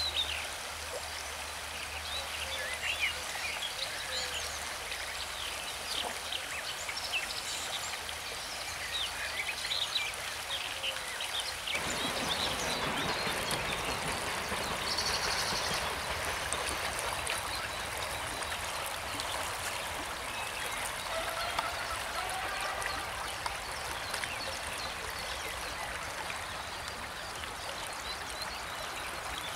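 River water rushing steadily, growing fuller and deeper about twelve seconds in. Many short, high chirps come over the water in the first part.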